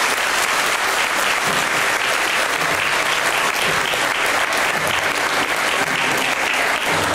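Audience clapping and applauding steadily.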